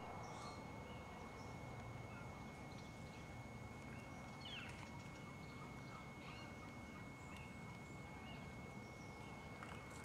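Wild turkey toms strutting in display, with faint short calls now and then over a steady low background rumble.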